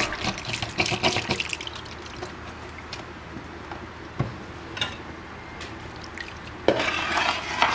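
Liquid trickling in a pot of milk and rice for Afghan rice pudding, after a spoon stirs briefly at the start. A metal spoon clatters against the pot near the end.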